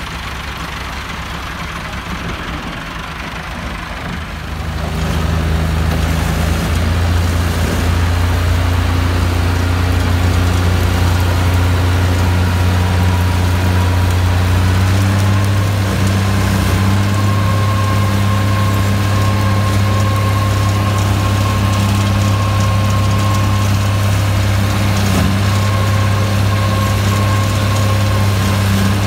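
Massey Ferguson 385 tractor's four-cylinder diesel running steadily under load, driving a Çel Mak forage harvester through the PTO shaft as it chops berseem and blows it into a trailer. The sound gets louder about five seconds in and then holds steady.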